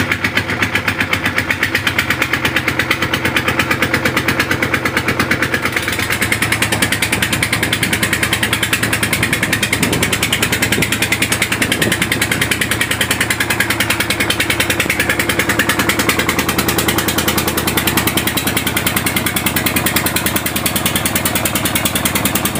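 A wooden fishing boat's engine running steadily under way, with a fast, even chugging pulse.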